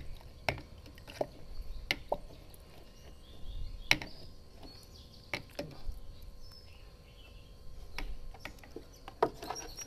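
A long pole stirring chopped pineapple peels steeped in rice-rinse water and molasses in a jar, knocking and tapping irregularly against the jar as it works; the sharpest knock comes about four seconds in.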